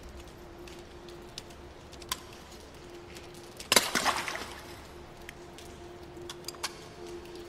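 A foot comes down hard in a puddle on a wet floor about halfway through, a single splash that trails off, over a faint steady hum and a few faint ticks.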